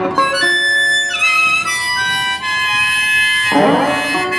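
Blues harmonica playing long held notes that step from pitch to pitch, then a wavering, chord-like passage near the end.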